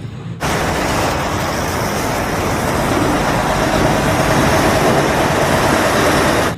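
Loud, steady motor-vehicle running noise with no clear pitch, like traffic or a truck engine. It cuts in suddenly about half a second in and stops abruptly at the end, as an edited-in sound clip does.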